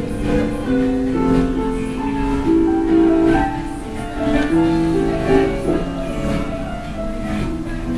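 Background instrumental music: a melody of held notes that change every half second or so.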